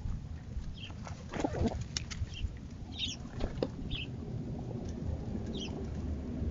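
Pigeons moving about, with a few wing flaps or scuffles and short, high, falling chirps about once a second over a low rumble.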